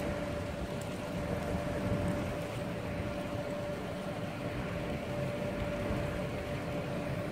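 Steady low rumble and hiss of harbour background noise, with a steady mid-pitched hum that fades out about halfway through.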